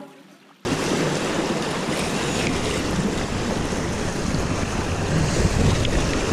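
Steady rush of river water flowing around a fishing raft, mixed with wind buffeting the microphone; it starts abruptly about half a second in, as a note of music dies away.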